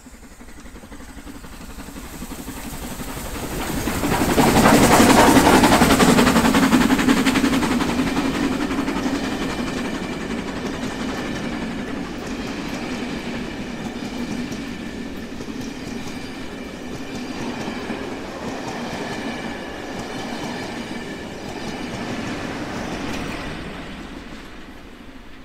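Steam-hauled passenger train passing close by at night. The sound swells to its loudest about five seconds in as the locomotive goes past. The coaches then roll by with wheels clattering over the rail joints, and the sound fades as the train draws away.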